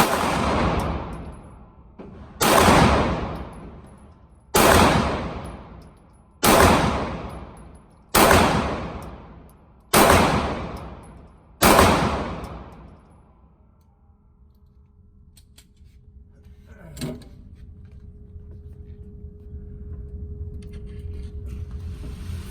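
Sig Sauer P225 9mm pistol fired seven times at a slow, even pace of about one shot every two seconds, each shot echoing off the walls of an indoor range. About five seconds after the last shot there is a single short click.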